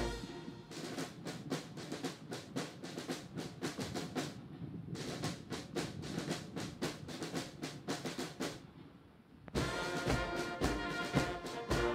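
Ceremonial military band: for most of the stretch only the drums play a quick, even beat, then the brass comes back in with the full band about two-thirds of the way through.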